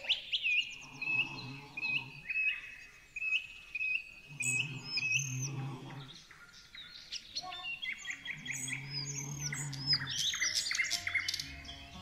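Small birds chirping and singing: short rising chirps repeating about twice a second, then a busier mix of higher arched notes from about seven seconds in, over soft sustained background music.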